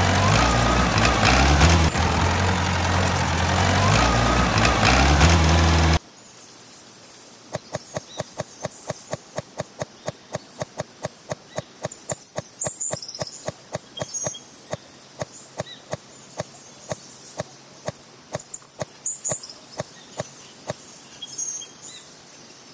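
A loud, steady engine drone from the miniature tractor that cuts off abruptly about six seconds in. Then a rapid series of sharp clicks and small scrapes, a few per second, as a tiny hand tool digs the sand among corn kernels, with birds chirping.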